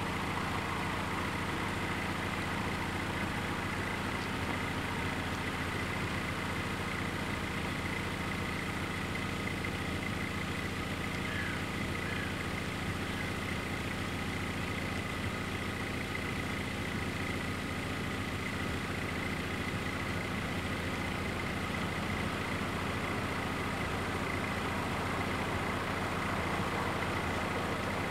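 Car engine idling steadily while waiting at a closed level crossing, with a thin steady high-pitched tone alongside.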